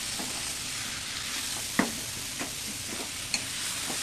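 Boiled jackfruit pieces and potato sizzling in hot mustard oil in a kadai, stirred with a wooden spatula that knocks and scrapes against the pan several times. The loudest knock comes about two seconds in.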